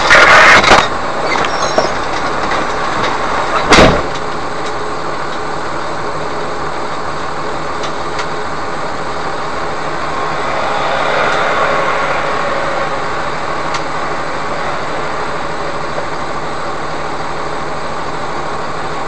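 Steady vehicle engine and road noise, with a sharp loud thump about four seconds in.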